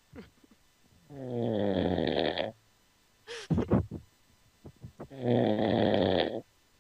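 A person snoring in sleep, heard over a Skype call: two long, rasping pitched snores about four seconds apart, with a short burst of sharp, loud sounds between them.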